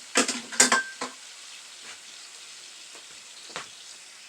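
Butter, brown sugar and cognac sizzling steadily in a pan for a banana sauce, with a few loud clinks and knocks of a utensil against the pan in the first second and one more about three and a half seconds in.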